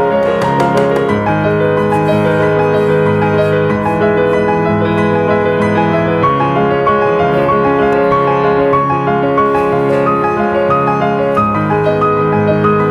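Background piano music with slow, held chords and a gentle melody line above.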